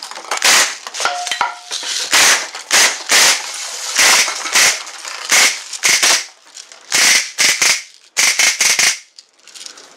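Two full-auto Umarex CO2 BB guns firing short rapid bursts, about a dozen bursts in all, with the BBs hitting drink cans and plastic milk jugs. The bursts stop about a second before the end.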